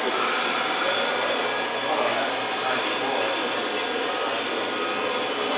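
A motor-driven blower running steadily, a constant rushing whir with no changes in pitch or rhythm.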